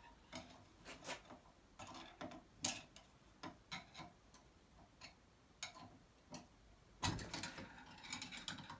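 Faint, separate metallic clicks and light taps from hand tools working on a Peugeot 103 moped engine's crankcase, spaced about every half second to a second. Near the end they turn into a quicker run of clicks and clatter.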